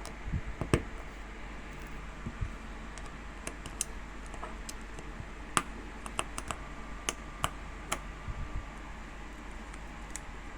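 Blue (clicky) mechanical keyboard switch with a rubber stop mod, not lubed or filmed, pressed and released repeatedly. It gives a series of clicks at an irregular pace.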